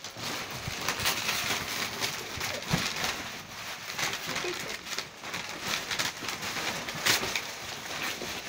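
Plastic bin bags and wrapping paper rustling and crinkling as a Siberian husky noses through them.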